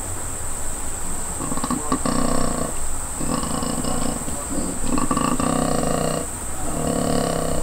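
Koala making deep, rasping, snore-like calls in a run of drawn-out breaths, each lasting up to about a second with short gaps between.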